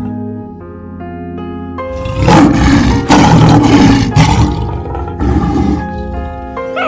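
A lion roaring in three rough bursts, the first two long and loud, the last shorter and weaker, over soft background music with sustained notes.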